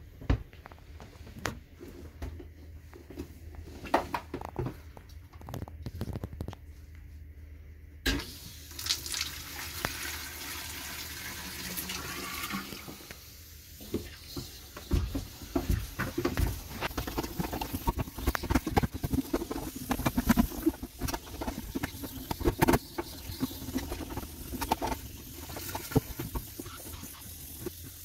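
Water rushing into an RV toilet from a hose-fed half-inch PEX pipe, starting suddenly about eight seconds in, with repeated knocks as the pipe is rammed down to break up a toilet-paper clog. Before the water starts there are scattered clicks of the fittings being handled.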